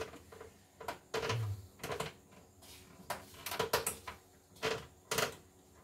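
Irregular clicks and light knocks as hands work the exposed mechanism of a CNY E960 embroidery machine, about a dozen in all with quiet gaps between them.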